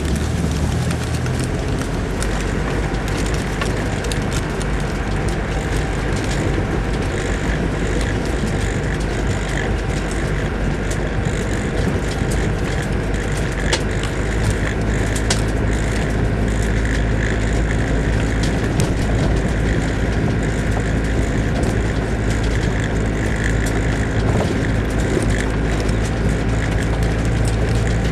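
Land Rover 4x4 engine running steadily as it drives slowly along a rutted grass track, with frequent short knocks and rattles from the vehicle bouncing over the ruts.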